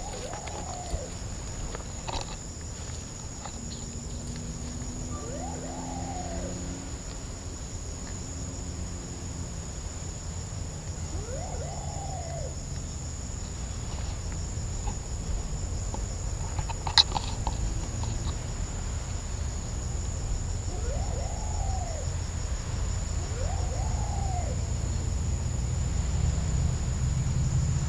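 Insects trilling steadily in the background, with a bird giving short rising-and-falling calls every few seconds, and one sharp click about 17 seconds in.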